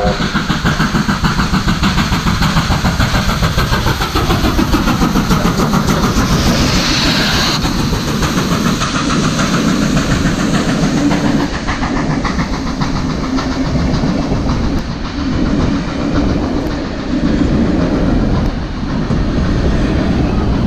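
NSW C38-class steam locomotive 3801 passing close at speed, its exhaust beating quickly, with a burst of steam hiss as the engine goes by about six to eight seconds in. It is followed by the rumble of passenger carriages rolling past, their wheels clacking over the rail joints.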